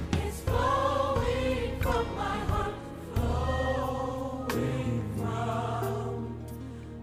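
Gospel choir music: a choir holding sung chords over a steady low bass line, with a few sharp percussion strokes.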